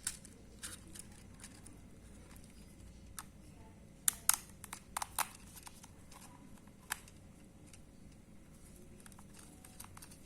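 Handling noise from wires and small electrical parts: scattered light clicks and taps, with a quick run of four or five clicks around the middle.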